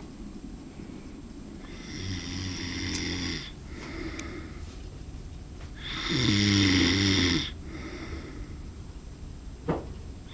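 A sleeping man snoring, one drawn-out snore at a time. The first comes about two seconds in, a weaker one follows around four seconds, and the loudest, longest one comes around six seconds. A short sharp click comes near the end.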